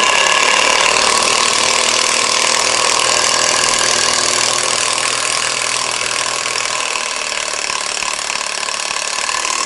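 14.4 V cordless screwdriver with a brushed motor running steadily for nearly ten seconds while driving a long screw into sheet metal, then stopping suddenly.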